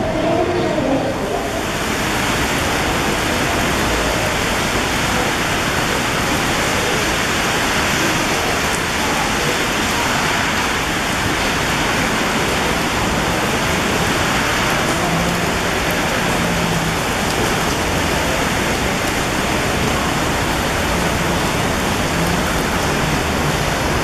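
Heavy typhoon rain pouring steadily onto a flooded pavement and road, a dense even hiss. It starts about a second and a half in, after a brief voice.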